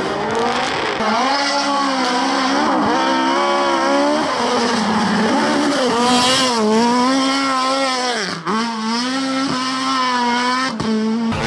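Rally car engine revving hard, its pitch repeatedly climbing and dropping back with throttle and gear changes, with one sharp dip about eight and a half seconds in.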